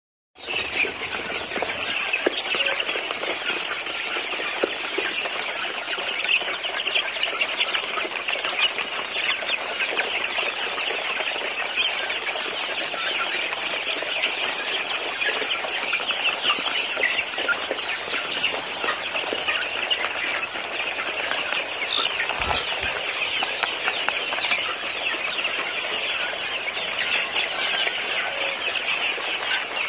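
A large flock of young chickens calling all at once: a dense, continuous chorus of short high peeps and cheeps.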